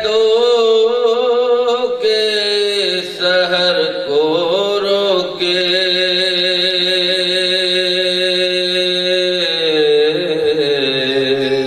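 A man chanting a Muharram soz-salam elegy in a slow, drawn-out melody. He holds long steady notes, with ornamented turns of pitch a few seconds in, and the phrase ends just before the close.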